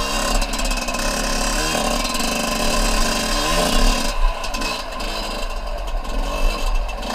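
Small dirt bike engine running under way, its pitch rising several times as the throttle is opened.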